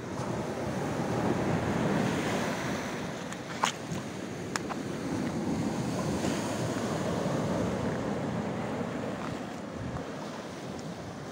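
Sea surf washing along a rocky shore, swelling and easing, with wind buffeting the microphone. Two sharp clicks, a second apart, come about a third of the way in.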